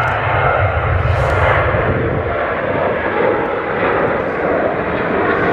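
Boeing 737-800's CFM56-7B turbofan engines at takeoff thrust as the jet lifts off and climbs away: a loud, steady jet noise whose deep rumble drops away about two seconds in.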